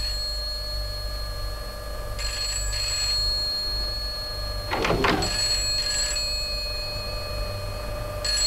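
Telephone ringing on and off, in repeated rings about three seconds apart. A short sound breaks in about halfway through.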